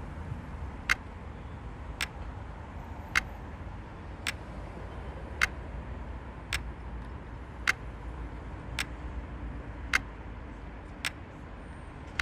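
Wall clock ticking slowly and evenly, about one tick a second, over a low steady rumble.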